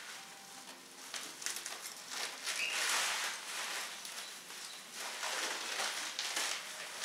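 Tissue paper rustling and crinkling as it is pulled out of a gift bag, in irregular bouts of a second or two.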